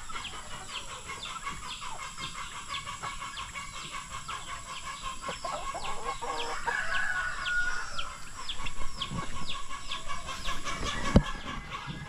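Domestic chickens clucking, over a steady run of short, high, falling chirps at about three a second. A single sharp knock comes near the end.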